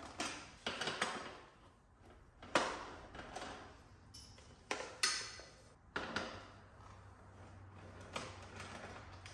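Irregular sharp clicks and knocks of a T-handle driver and hard plastic parts being handled as screws are taken out of a dirt bike's plastic radiator shroud and louver, the loudest a little over two and a half seconds in and about five seconds in.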